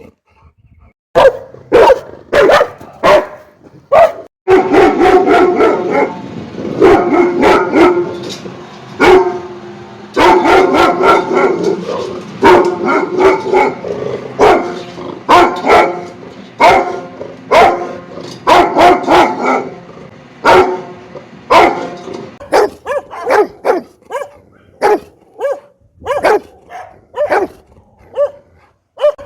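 Rottweiler barking repeatedly: deep, loud barks in quick runs of two to four, starting about a second in. Toward the end they turn into single barks roughly a second apart. A steady background hiss lies under the barking through most of the middle stretch.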